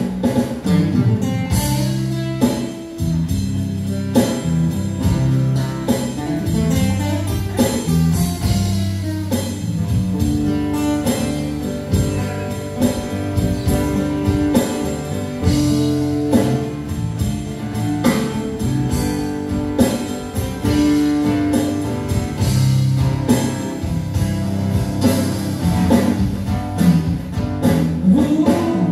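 Live band music led by acoustic guitars, strummed and picked over a steady beat, with held melody notes.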